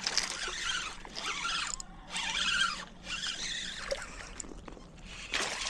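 Spinning reel being cranked in spurts, a gritty whirring retrieve as a hooked smallmouth bass is reeled in.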